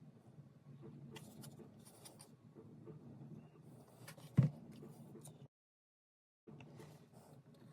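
Small wooden model-kit parts being handled on a workbench: faint clicks and rustles over a steady low hum, with one sharp knock about four and a half seconds in. The sound cuts out completely for about a second near the end, then resumes.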